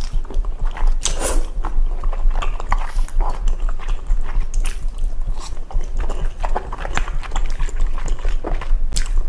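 Close-miked mukbang eating: a woman chewing, smacking and slurping food from chopsticks, with many quick wet clicks from her mouth over a steady low hum.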